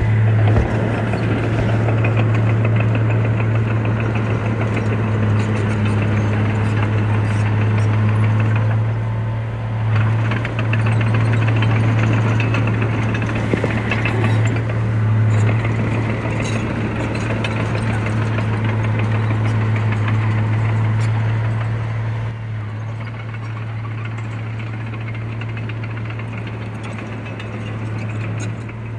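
Diesel engine of heavy earthmoving machinery running steadily with a knocking clatter over a constant hum, easing off a little about three-quarters of the way through.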